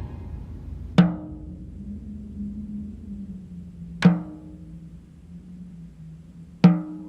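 Horror trailer score: three slow, sharp drum hits roughly three seconds apart, each ringing out briefly over a low steady drone.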